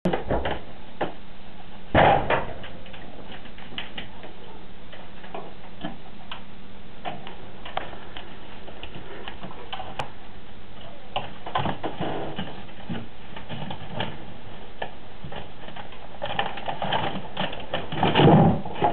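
Pet skunks rummaging through a refrigerator: a steady stream of irregular clicks and taps, with a louder knock about two seconds in and busier, louder knocking and rustling near the end.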